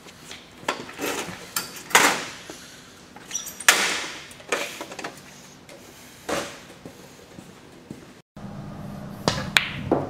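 Several short scuffs and knocks from a person getting up from a table and walking away, the loudest about two and four seconds in. Near the end a pool cue strikes the cue ball and the balls clack together twice.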